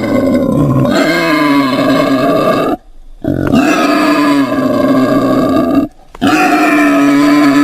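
Wild boar making long, pitched vocal calls, three in a row, each lasting two to three seconds with short breaks between.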